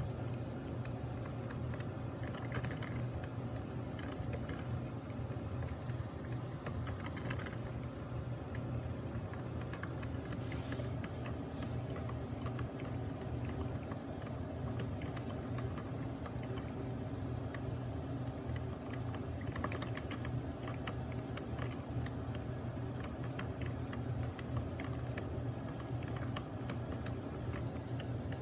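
Mr. Coffee BL5 4-cup drip coffee maker brewing: irregular crackling clicks and pops over a steady low hum.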